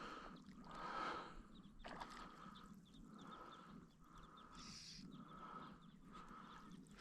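A person breathing hard and fast, quiet puffs of breath coming about every two-thirds of a second.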